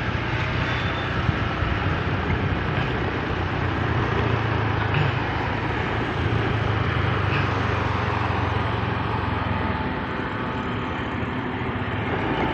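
Motorcycle on the move: a steady low engine hum under rushing wind and road noise, with other traffic around.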